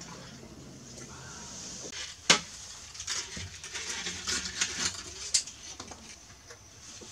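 Gear being handled against an aluminium boat hull: one sharp knock about two seconds in, then a run of irregular clattering knocks and scrapes over the next few seconds.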